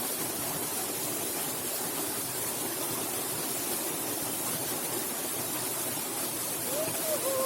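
Steady rush of flowing stream water, an even hiss with no distinct events. A faint voice is heard near the end.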